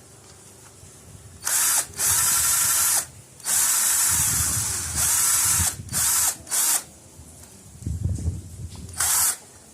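Power drill spinning a right-angle screwdriver attachment in a series of short bursts, each whine rising and falling as the trigger is squeezed and released.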